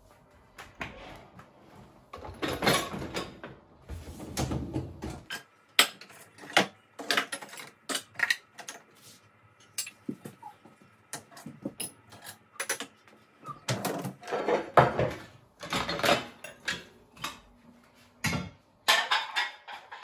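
Household kitchen clatter: a string of irregular knocks and clinks of dishes and utensils being handled, with a low rushing noise under the first few seconds.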